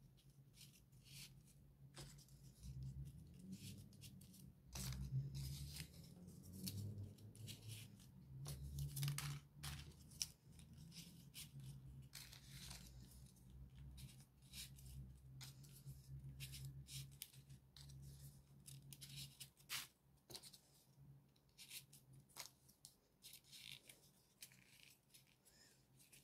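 Soft, irregular paper rustling and light clicks as folded paper triangle modules are slid onto and pressed into the rows of a 3D origami figure. A faint low hum runs underneath through the middle of the stretch.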